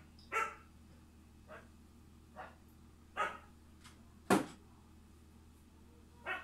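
A dog barking repeatedly: about six short barks spaced roughly a second apart, the loudest a little past four seconds in, over a low steady hum.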